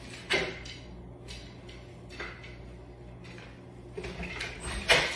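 A few short knocks and handling sounds of a food package and container being moved on a kitchen counter, over a low steady hum, with the sharpest knock near the end.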